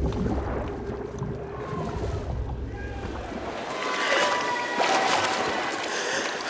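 Muffled underwater rumble of a swimmer stroking through the water. About three and a half seconds in, it switches to open-air splashing as she reaches the pool wall, with voices shouting.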